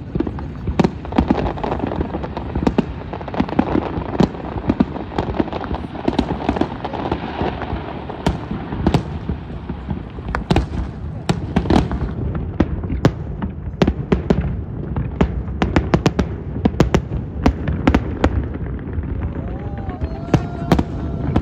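Aerial fireworks display: a rapid, irregular series of sharp bangs and crackles, with the crowd of onlookers talking underneath.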